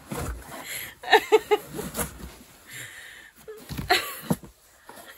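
A woman laughing hard, with a run of three quick 'ha's about a second in and another burst of laughter near four seconds.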